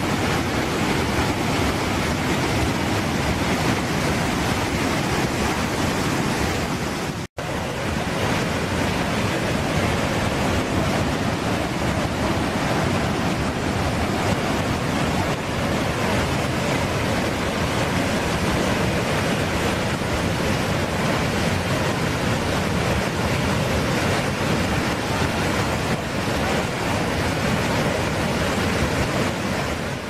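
Iguazu Falls pouring: a loud, steady, dense rush of a massive waterfall, broken by a split-second gap about seven seconds in.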